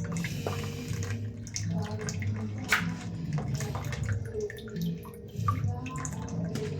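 Water splashing and dripping, with irregular light clicks, over background music.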